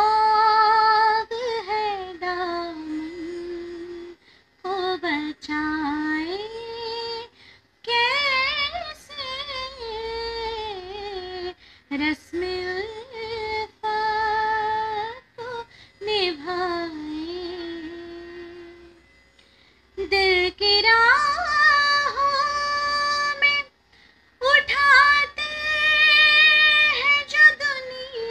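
A woman singing a Hindi ghazal alone, with no accompaniment: long held, ornamented phrases that slide and waver in pitch, broken by short silent breaths between them.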